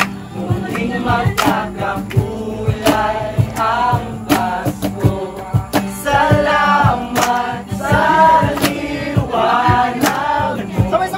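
A small group of young men singing a Tagalog Christmas song together into a microphone, over a steady beat with sharp hits about every second and a half.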